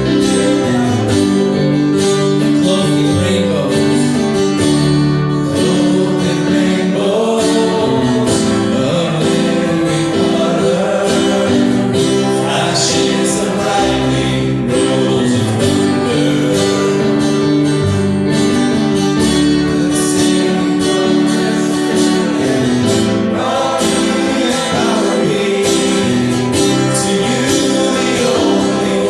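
Gospel worship song with singing over acoustic guitar strumming.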